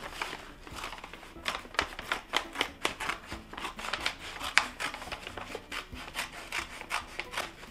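Scissors cutting through a brown paper grocery bag: a run of irregular snips, a few a second, with the stiff paper rustling as it is handled.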